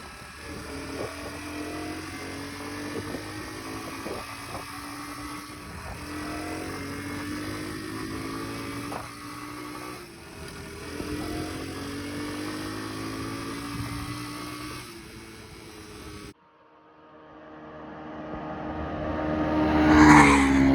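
Honda CT110 postie bike's single-cylinder four-stroke engine accelerating: its pitch climbs, drops back and climbs again with each gear change. After a sudden cut about 16 s in, the bike approaches and passes close by, loudest near the end.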